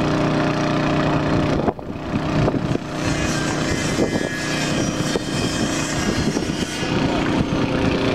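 A motor running with a steady hum. The hum drops out about a second and a half in and comes back near the end, with irregular rumbling noise in between.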